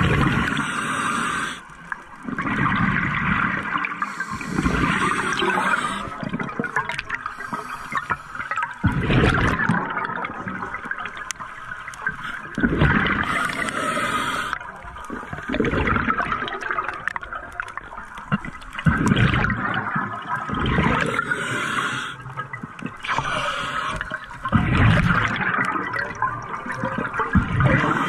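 Scuba regulator breathing underwater: a hiss on each inhale and a rush of burbling exhaust bubbles on each exhale, repeating every few seconds.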